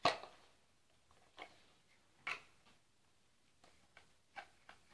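Large plastic building blocks clacking and clicking against each other as a toddler handles and presses them together: a string of short, sharp knocks at an irregular pace, the loudest right at the start.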